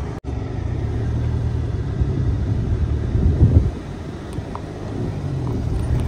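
Low, steady rumble of a car driving.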